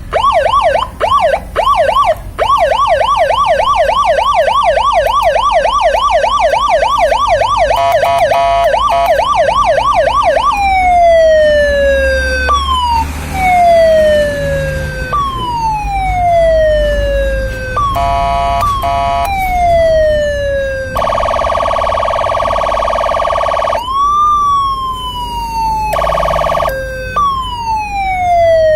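A 12-tone electronic siren module stepping through its sounds: a fast yelp sweeping up and down about four times a second, then slow falling wails every couple of seconds, broken by two steady horn blasts, with the fast yelp coming back at the end.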